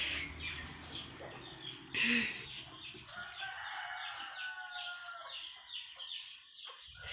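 Chickens clucking and calling in a run of short, repeated chirping calls, with a rooster crowing among them, from about three seconds in until near the end. A brief louder noise comes about two seconds in.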